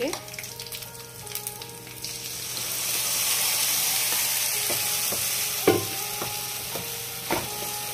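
Yogurt and gram-flour batter poured slowly into hot oil and fried pakoras in a steel kadhai, sizzling, the hiss swelling about two seconds in and then easing. A metal spoon knocks sharply against the pan twice near the end as the mixture is stirred.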